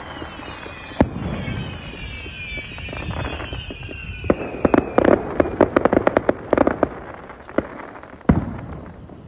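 Fireworks going off. There is a sharp bang about a second in, several whistles falling in pitch, then a rapid string of crackling pops and another loud bang near the end.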